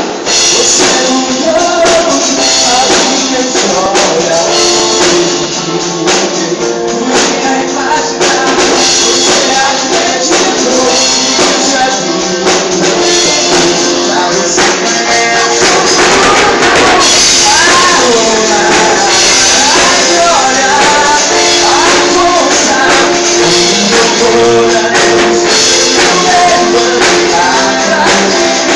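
Gospel worship band music with tambourine, without words. A melodic line glides up and down through the second half.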